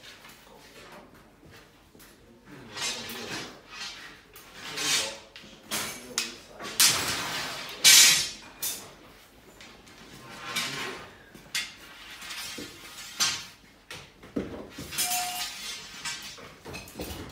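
Irregular clatter and scraping from pipes and fittings being handled, a string of separate knocks and rasping scrapes, the loudest about eight seconds in.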